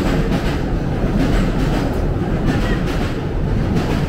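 Train passing on the railway tracks: a loud, steady rumble with a repeated clatter of wheels over the rail joints.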